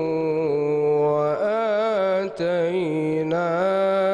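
A male Quran reciter chanting in the slow, melodic mujawwad style, drawing a verse out into long held notes that step between pitches and waver in ornaments. The voice breaks off briefly with a click a little past halfway, then resumes.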